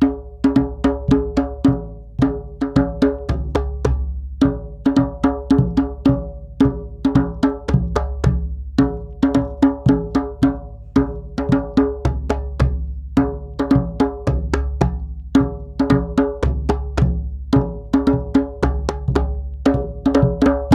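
A drum struck in a steady repeating pattern of quick, ringing strokes, one stroke per syllable of a chant phrase. The pattern breaks briefly about every two seconds, so the whole phrase repeats about every four and a half seconds.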